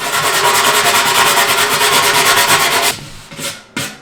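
Rust being scraped off the metal barrel by rapid brushing, a loud, even scratching that stops suddenly about three seconds in.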